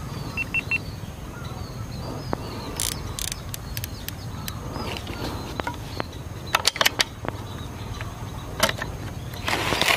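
Small birds calling with short repeated chirps over a steady low rumble. Several sharp clicks and rustles come from handling the scoped air rifle and its scope.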